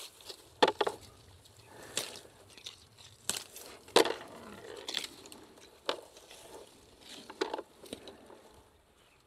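Irregular crackles and crunches, a dozen or so sharp snaps at uneven intervals: hands and feet moving among dry shrub branches, leaves and ground while berries are picked.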